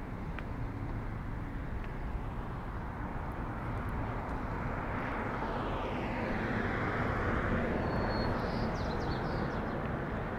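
A vehicle passing by: a steady rushing noise that swells to its loudest a little past the middle, then eases off.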